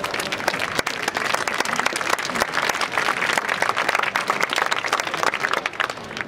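Audience applauding, a dense spread of many hands clapping that thins out near the end.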